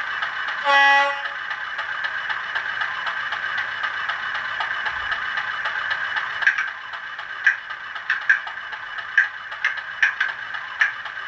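Sound decoder of a model Class 50 diesel locomotive playing through its small speaker: the diesel engine running steadily, a short horn blast about a second in, then from about six and a half seconds the Spirax valves function, irregular sharp clicks over the engine.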